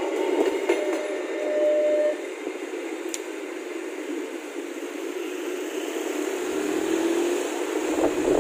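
Passenger train coaches rolling past on the rails, a steady rushing wheel-on-rail noise. It drops a little in level about two seconds in as the rear of the train approaches.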